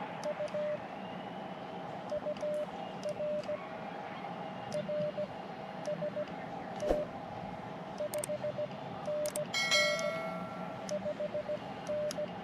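Morse code (CW) from an Elecraft KX2 ham transceiver: a single beeping tone keyed in short and long elements over a steady hiss of band noise, with scattered clicks. About ten seconds in there is a brief, buzzier tone.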